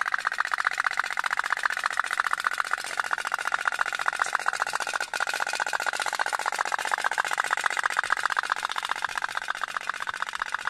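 Toy pop-pop (otok-otok) steam boat running, its little boiler and diaphragm giving a rapid, even stream of popping ticks.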